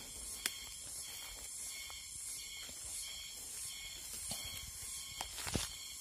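Footsteps rustling through dry grass and brush, with a few sharp snaps and crackles, the loudest near the end, over a steady high chirring of insects.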